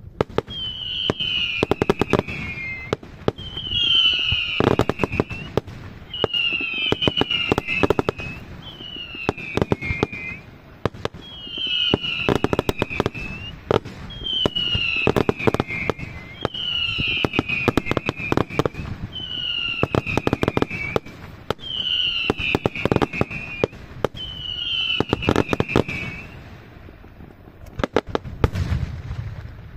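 Daytime fireworks display: a steady series of about ten whistling shells, one every two seconds or so, each a high whistle sliding slightly down in pitch over a rapid cluster of sharp bangs and crackling. Near the end the whistles stop and a couple of deeper booms follow.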